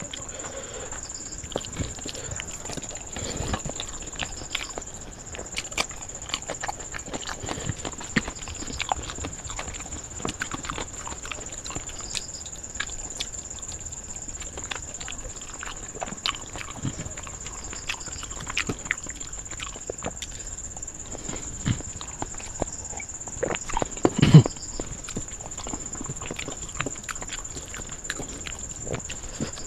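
Close-miked chewing and lip-smacking as rice and curry are eaten by hand, with moist clicks and squelches of fingers mixing food on a steel plate. One louder low thump comes late on.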